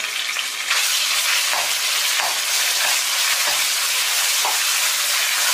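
Minced meat sizzling in hot oil in a wok, the sizzle growing louder less than a second in, while a metal ladle stirs and breaks the meat apart with soft repeated scraping.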